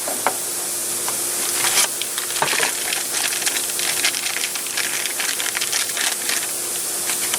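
Light scattered clicks and rattles of a small plastic pressure sensor and its fittings being handled, over a steady hiss and faint hum.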